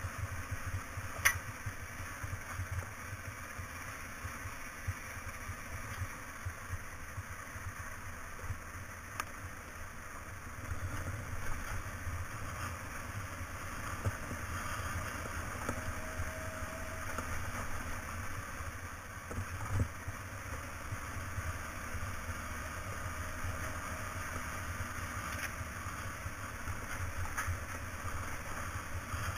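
Motorcycle riding along a gravel road: engine and tyre noise with a steady low rumble, and a few sharp clicks, the loudest about a second in.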